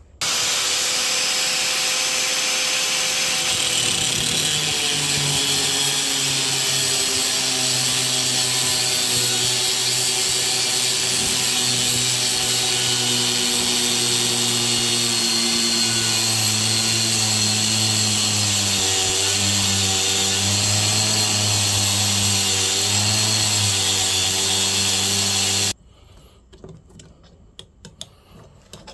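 Angle grinder cutting through the steel of a railroad spike: a loud, steady hiss of cutting over the motor's whine, which sags and wavers in pitch as the wheel bites. It shuts off suddenly near the end, leaving a few faint clicks.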